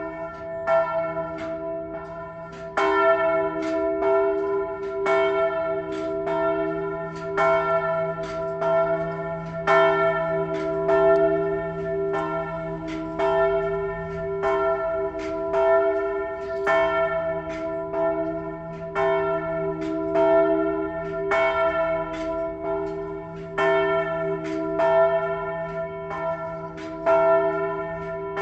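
Church bells start up and ring on, several bells struck over and over at a quick, uneven pace, their tones overlapping into continuous ringing.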